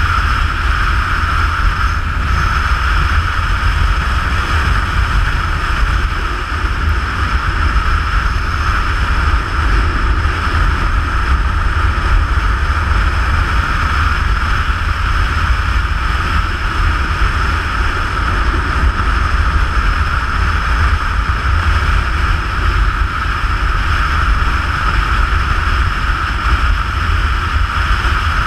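Steady wind rush buffeting a motorcycle-mounted camera's microphone over a motorcycle engine running at an even cruising speed.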